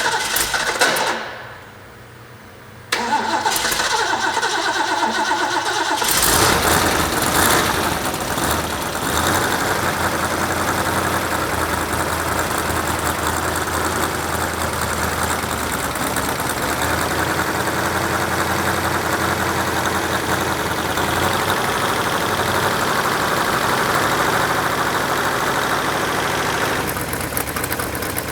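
Rebuilt Ford 351 Cleveland V8 cranking on its starter, pausing, cranking again, then firing about six seconds in. It revs up and down briefly and settles into a steady run. Its exhaust is leaking at the cheap stamped-steel header gaskets.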